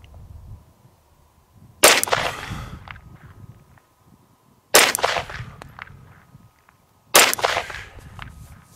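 Three single shots from an Arex Delta 9mm pistol, about two and a half seconds apart, each sharp report followed by a short echo that dies away.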